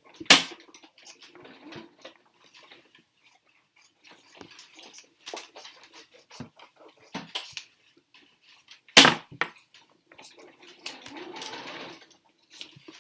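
Two sharp knocks, one right at the start and one about nine seconds in, among scattered small clicks and rustling.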